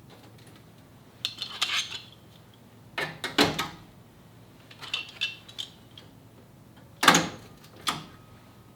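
Metal clinking and clattering in five irregular bursts, some with a short metallic ring: metal tools or parts being handled.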